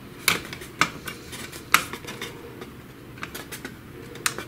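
Small hard plastic and metal parts of a Samsung ML-1210 laser printer clicking and clattering as they are handled and fitted together: three sharp clicks in the first two seconds, then lighter scattered taps.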